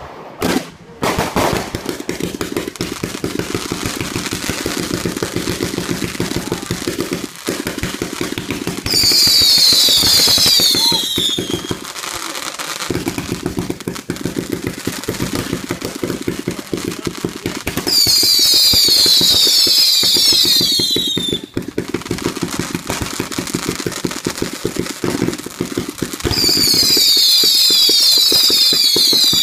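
A 500-shot firework repeater firing a rapid, continuous stream of small pops. Three times it bursts into a loud spell of many screaming whistles that fall in pitch, each spell lasting two to three seconds.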